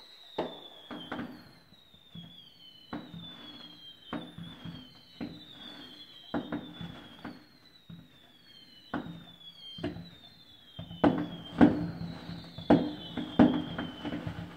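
Aerial fireworks shells bursting in a series of sharp bangs, trailed by crackle, coming faster and louder from about eleven seconds in. A high whistle falling in pitch repeats about once a second throughout.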